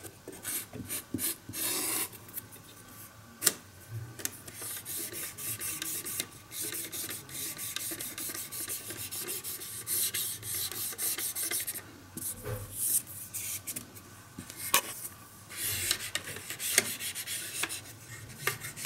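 A cloth-tipped stick wiping dust off the model buildings and road of a railway diorama: irregular rubbing and scraping strokes, with a few sharp light clicks as the stick taps the models.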